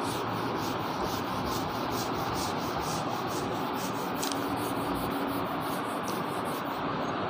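Handheld board duster rubbing marker writing off a whiteboard: steady scrubbing in quick, repeated back-and-forth strokes.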